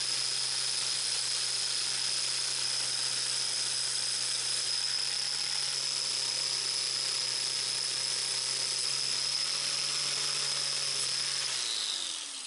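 Power tool with a wire brush running steadily, scrubbing rust off steel motorcycle clutch discs. It is switched off near the end and winds down.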